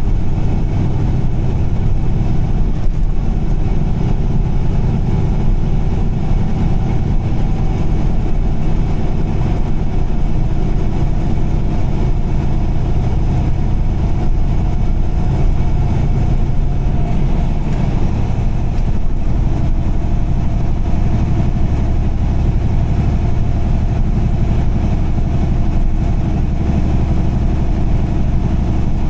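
Vehicle engine and road noise heard while driving at speed: a steady, loud low rumble with a few steady tones over it. About two-thirds of the way through, the tones shift pitch briefly and then settle again.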